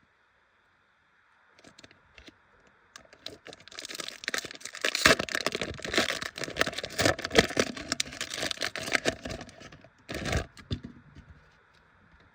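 Foil wrapper of a Pokémon booster pack being torn open and crinkled: a dense crackling that builds for several seconds. It ends with a last sharp rip about ten seconds in, then a few faint crinkles.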